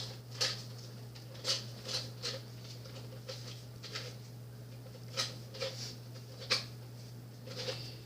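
Foam darts being pushed one by one into a Nerf 25-dart drum magazine: irregular short plastic clicks, roughly one every second.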